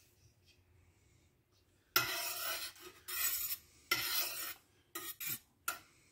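Stainless steel ladle stirring melted oils in a stainless steel pot, scraping against the pot in three longer strokes starting about two seconds in, then a few shorter, quicker ones near the end.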